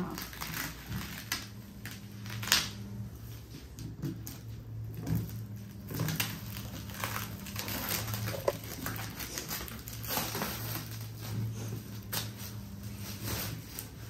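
Packaging being handled and opened: rustling and crinkling with scattered clicks and knocks, the sharpest about two and a half seconds in, over a steady low hum.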